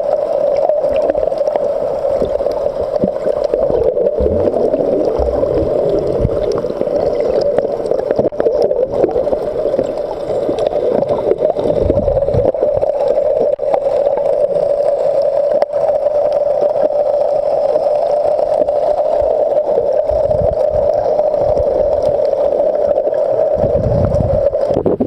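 Underwater sound in the Red Sea: a steady mid-pitched drone throughout, with a few low thumps and some bubbling.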